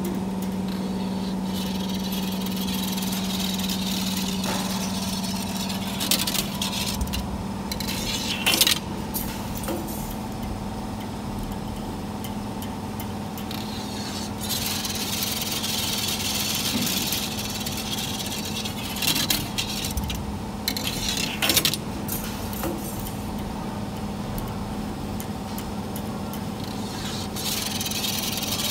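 CNC 3D wire bending machine running, a steady hum under stretches of higher whirring as it feeds and bends the wire. A few sharp metallic clacks come through, the loudest about eight seconds in.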